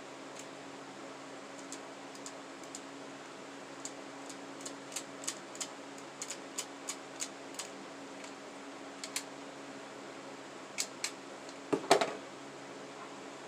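Small metallic clicks from handling a Dan Wesson .357 CO2 replica revolver, including a run of evenly spaced clicks. A single louder clack comes near the end, all over a steady low hum.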